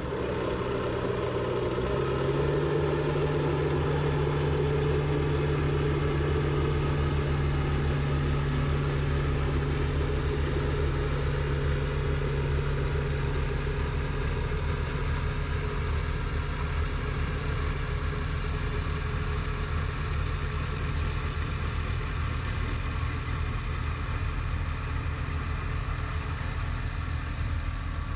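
Kubota BX2230D compact tractor's diesel engine running steadily, its note stepping up slightly about two seconds in.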